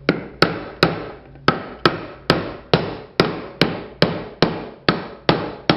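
Hammer driving nails into the wooden boards of a bluebird nest box: a steady run of about fourteen blows, two or three a second, each with a short ringing decay.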